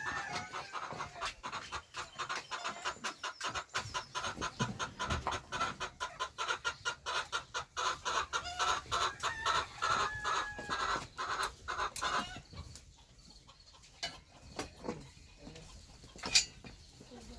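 Chickens clucking, a dense run of rapid calls for about twelve seconds that then thins out, with one sharp click near the end.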